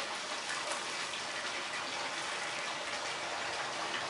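Steady rush and splash of running water, even throughout.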